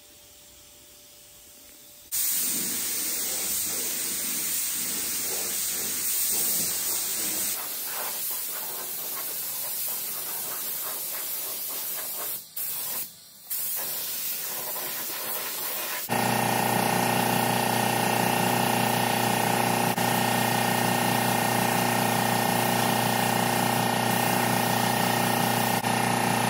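Gravity-feed paint spray gun hissing as paint is sprayed, starting suddenly about two seconds in and cutting out twice for a moment near the middle. In the last part a steady machine hum runs under the hiss.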